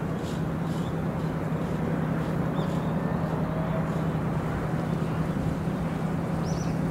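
Steady low drone of a ship's engine running at an even pitch, with a haze of wind and harbour noise.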